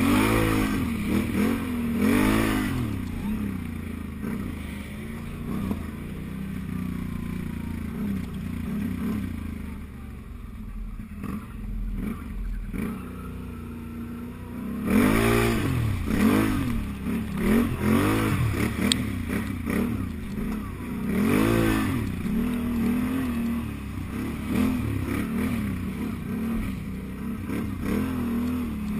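Can-Am Outlander 1000 ATV's V-twin engine revving up and down in repeated bursts under load, easing off to a lower, quieter run for a few seconds midway before revving hard again.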